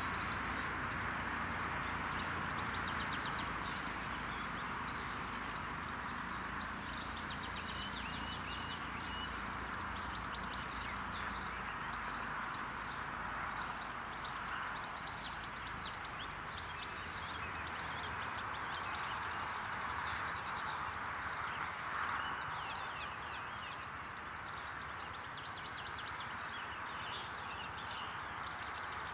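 Small birds chirping and singing over a steady outdoor background hiss.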